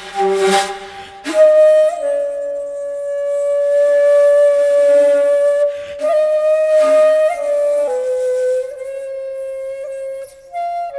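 Background music: a flute playing long held notes that slide between pitches, with breathy attacks at several note onsets.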